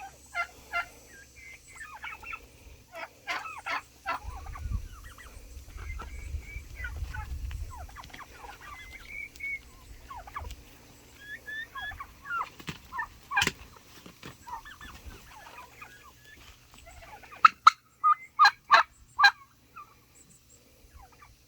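Turkeys calling: scattered short chirping calls throughout, with a run of loud, sharp calls about three quarters of the way through.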